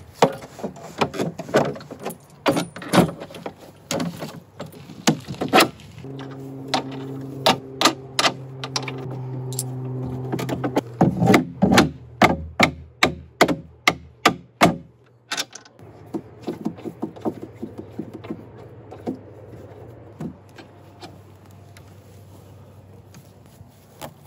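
A run of sharp knocks and clicks as wooden crossbeams and metal bolts and wing nuts are fitted together on a wooden raft, coming thickest past the middle and fainter near the end. A steady low hum swells under the knocks for a few seconds in the middle, then cuts off.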